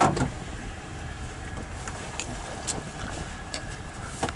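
Pickup truck idling, a steady low rumble heard from inside the cab with the window down, with a knock at the start and a few light clicks.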